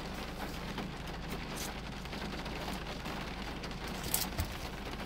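Steady hiss with a low hum in a car's cabin, with a few faint ticks.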